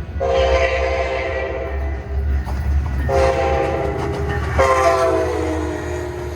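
A passing metro train sounds its horn three times: a long blast, a shorter one, then a held note that drops in pitch as the train goes by. Under the horn runs the train's steady rumble.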